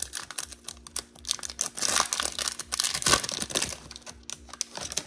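Crinkly wrapper of a Topps Merlin soccer trading card pack being torn and peeled open by hand: a dense crackle of crinkling and tearing, loudest in the middle and thinning out near the end.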